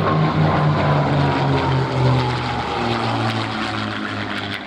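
P-51 Mustangs' Merlin V12 engines running in flight: a deep, pulsing propeller-engine drone with a faint whine falling in pitch, slowly fading.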